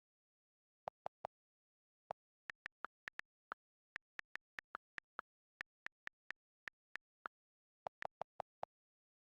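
A smartphone's touch and keyboard click sounds: a long string of short, sharp clicks at uneven spacing, some in quick runs of three or four a second, with dead silence between them.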